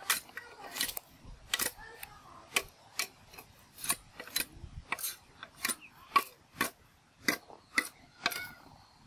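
A knife blade chopping into a green bamboo stem: sharp knocks repeated at a steady pace, about two a second.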